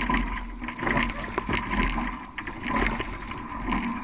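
Sculling shell being rowed: water rushing and oar blades splashing, swelling and easing with each stroke about every two seconds, with a few sharp knocks from the oars and riggers.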